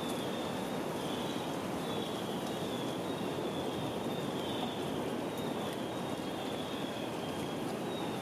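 Steady outdoor rushing noise in the forest, with a short high chirp repeated about once a second above it.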